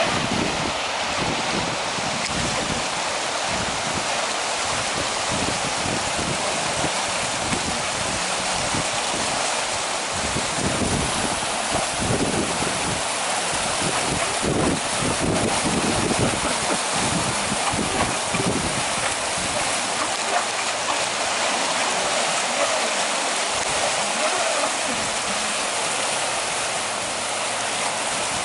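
Fast-flowing creek water rushing steadily, with irregular low wind buffeting on the microphone.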